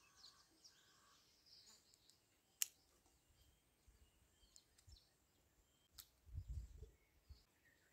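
Near silence broken by the snip of hand pruning shears trimming leaves and side shoots off a bougainvillea stem: one sharp click about two and a half seconds in, a fainter one at six seconds, then soft low rustling.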